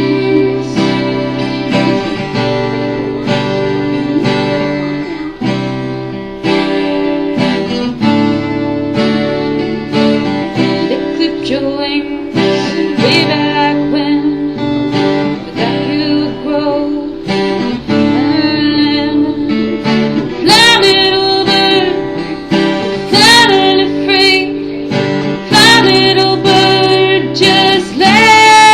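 A song with acoustic guitar accompaniment and a singing voice. The sung melody stands out most in the latter part.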